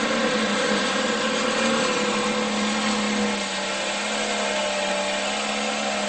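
John Deere pulling tractor's diesel engine running flat out under load as it drags a weight-transfer sled: a loud, steady, high-pitched drone that rises slightly near the end.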